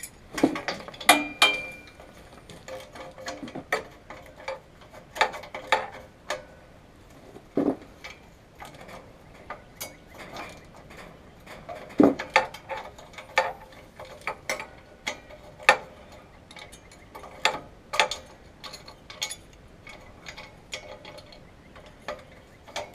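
Hand tools clicking and clinking on metal in irregular sharp knocks, some with a short ring, with the clicking of a socket ratchet among them.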